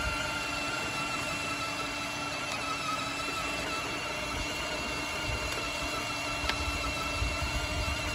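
Electric motor and gearbox of a children's battery-powered ride-on go-kart whining steadily as it drives along, over a low rumble.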